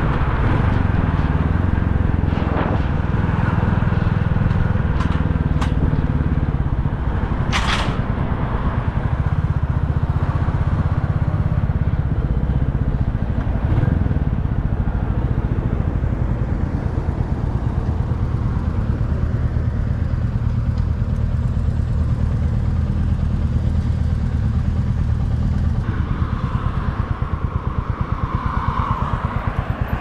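Motorcycle engine running steadily under way, a low rumble throughout, with a single sharp click about eight seconds in.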